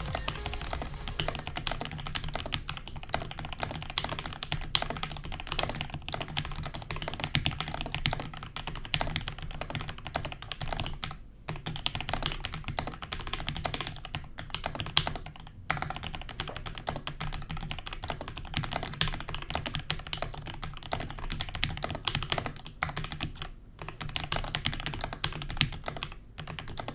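Typing on a mechanical keyboard fitted with PBT keycaps: rapid, continuous keystrokes, broken by a few short pauses.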